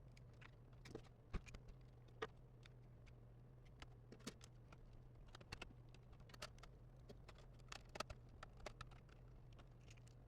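Scattered light clicks and taps of small laptop parts being handled during reassembly, irregular and a few a second at most, over a faint steady low hum.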